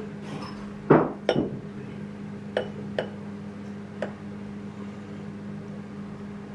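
Glass and dishware clinking as the drink is poured and the glass handled: two loud clinks about a second in, then three fainter ones about a second apart, over a steady low hum.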